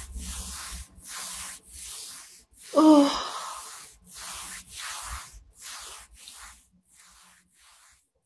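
A woman breathing heavily and fast, in quick noisy breaths, with a short moan about three seconds in; the breaths fade near the end. She is nauseous, feeling she is about to throw up.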